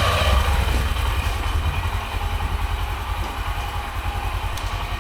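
Honda SP 125's single-cylinder engine idling with a steady, rapid low thumping.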